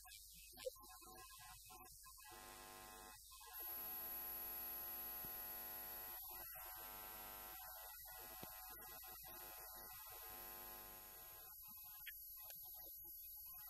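Faint steady electrical hum. A thin high whine joins about three and a half seconds in, and the hum is a little louder from then on.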